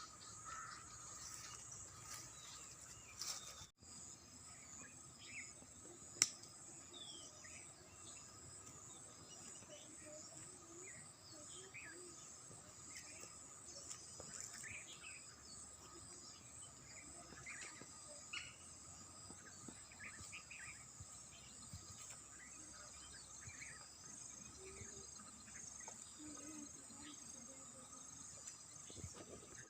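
Faint rural chorus of insects: a steady, high, pulsing trill with a lower steady tone beneath it. Birds give short scattered chirps throughout, and there is a single sharp click about six seconds in.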